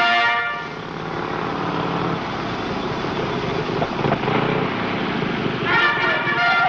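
Motorcycle-and-sidecar engine running as the machine rides in and pulls up. A held trumpet note dies away within the first second, and another sustained pitched note starts near the end.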